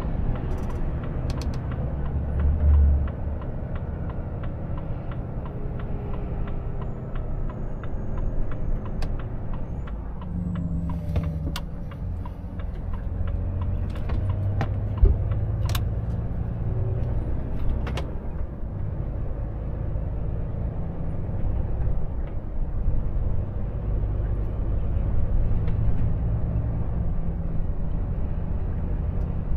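Volvo FH truck on the move, heard inside the cab: a steady low rumble of the drivetrain and tyres at about 40 km/h. There is a brief louder rumble about three seconds in, and a few sharp clicks and knocks in the middle.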